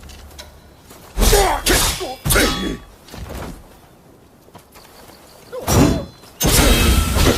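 Naginata combat sound effects: a series of sudden swishes and hits. There is a cluster of three about a second in, a faint one near three and a half seconds, and two more bursts near six and seven seconds.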